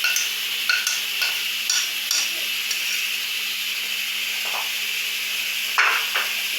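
A metal spoon clinking and scraping against a pan as corn is stirred into the chicken filling. There are several quick clinks in the first two seconds and a sharper knock near the end, over a steady hiss.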